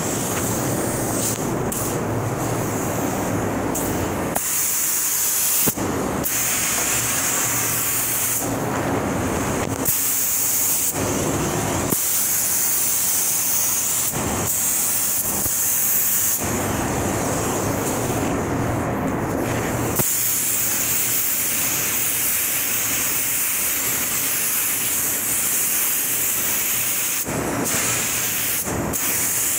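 Compressed-air paint spray gun hissing in long bursts as it lays on clear coat, the trigger released and pulled again every few seconds. In the gaps between bursts a lower steady rumble carries on.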